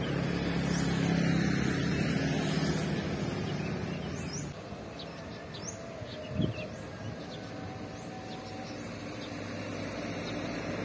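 A vehicle engine running steadily, which drops away after about four and a half seconds. Then a quieter outdoor background with a few short bird chirps and a single low thump about six seconds in.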